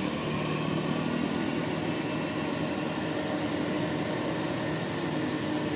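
Steady drone of a vehicle engine, with road traffic noise around it.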